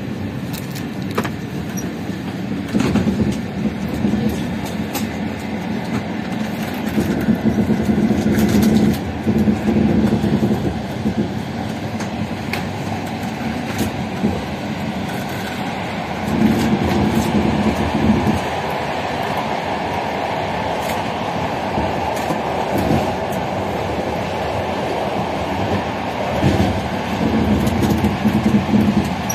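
Passenger train carriage running along the line, heard from on board: a steady wheel-and-rail rumble with scattered clicks over the track. Louder rumbling swells come several times.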